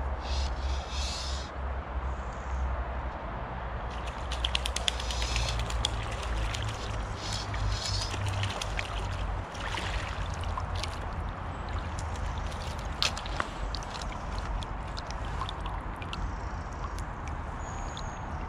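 Water splashing as a hooked brown trout thrashes at the surface and is drawn into a landing net: irregular splashes and drips from about four seconds in, over a steady low rumble.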